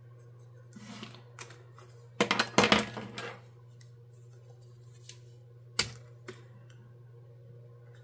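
Plastic felt-tip marker caps clicking off and on and markers knocking on a desk while colours are swapped: a quick cluster of clicks about two seconds in and one sharp click near six seconds, with a few faint pen taps. A steady low hum runs underneath.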